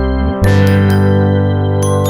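Instrumental background music: sustained keyboard chords with a change of chord about half a second in.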